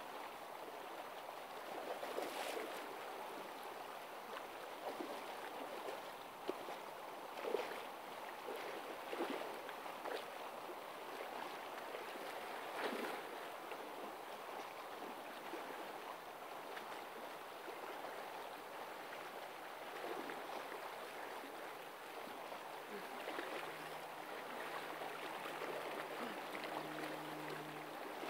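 Open river water flowing past a snowy bank: a steady rush with a few brief soft knocks through it. A faint low hum comes in near the end.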